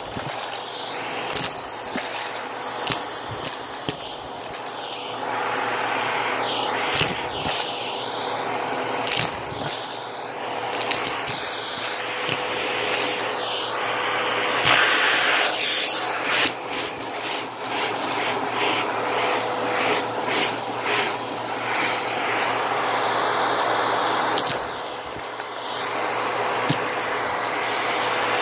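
Vacuum cleaner running steadily with a steady motor whine, its brush attachment being scrubbed back and forth over shag carpet, with scattered short clicks as it passes over loose coins.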